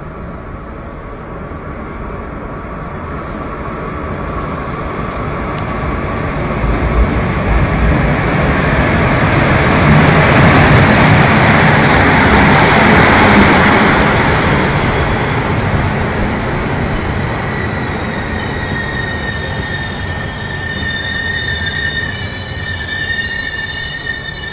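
Passenger train hauled by an MŽ 441-class ASEA-design electric locomotive approaching and passing close by. The rolling noise builds to its loudest as the locomotive goes by about halfway through. The coaches then roll past with a steady, high-pitched wheel squeal through the last third.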